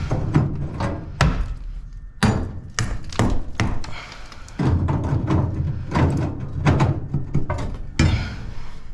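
Irregular knocks and thuds of hands-on construction work, a dozen or more hits of uneven strength with short pauses between them.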